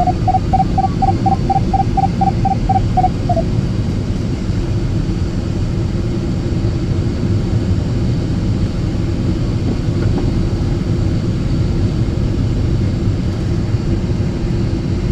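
Steady rushing airflow and airframe noise in a glider cockpit under aerotow. A rapid run of electronic beeps at one pitch, about four a second, comes from a cockpit instrument and stops after about three and a half seconds.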